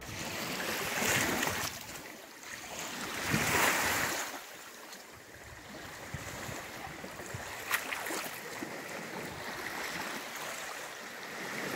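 Small lake waves washing and splashing against a driftwood log and shore rocks, coming in surges, the strongest about three and a half seconds in.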